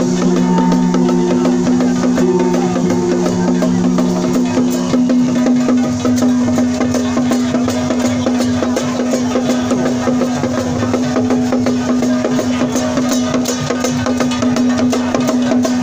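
Traditional temple procession music: drums and wood-block percussion struck in a busy, continuous rhythm under one long held wind-instrument note.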